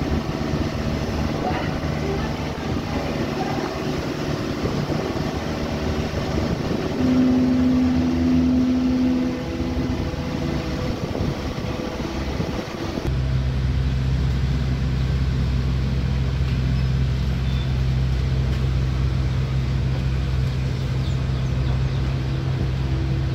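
Diesel engine of an amphibious mini excavator running while it digs. A loud steady whine joins it for about two seconds near the middle. About halfway through, the sound switches abruptly to a steadier, deeper engine drone.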